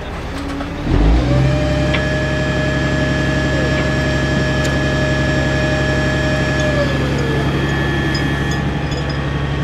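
Boom truck engine running; it steps up in speed and loudness about a second in. A steady whine rides over it and slides down in pitch about seven seconds in.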